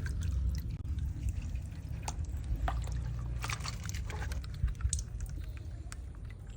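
Water from a burst water balloon splashing and dripping in scattered small patters and taps, over a steady low rumble.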